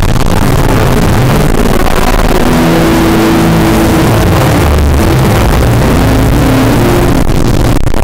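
Logo music run through heavy distortion: clipped and pushed to full loudness, a harsh, steady wall of noise with low held notes buried under it. It cuts in suddenly at the start.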